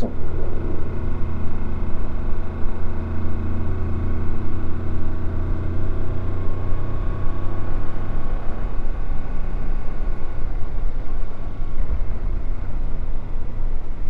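Motorcycle engine running at steady revs on the move. Its even note gives way to a rougher noise about eight seconds in.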